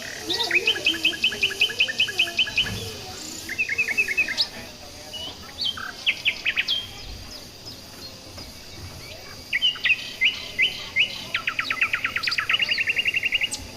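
Birds chirping in several bouts of quick repeated short high notes, the longest and fastest trill near the end.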